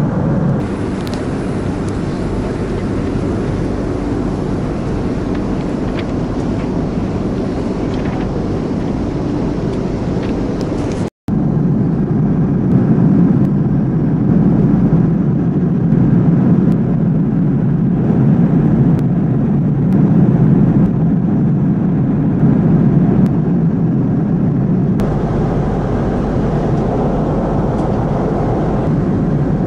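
Airliner cabin noise in cruise flight: the steady rush of engines and airflow heard from a passenger seat. It drops out for an instant about eleven seconds in.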